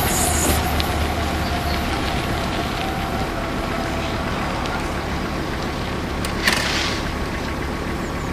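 Valmet Dm7 railbus's six-cylinder Valmet 815D diesel engine running as the railcar pulls away, its rumble slowly fading. There is a sharp short knock about six and a half seconds in.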